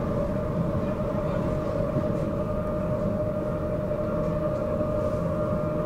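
Stockholm commuter train running, heard from inside the carriage: a steady low rumble of wheels on the track with an electric whine held on one pitch.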